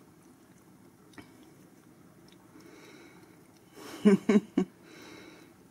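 Faint low background sound with a single soft click about a second in, then three short, loud voice sounds close together about four seconds in.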